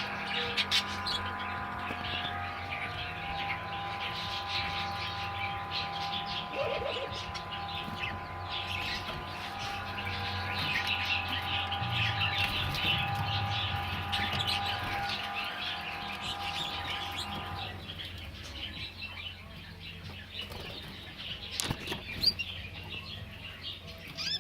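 Canaries chirping and twittering continuously, with a few sharp clicks. A steady, evenly pitched hum runs underneath and cuts off suddenly about three-quarters of the way through.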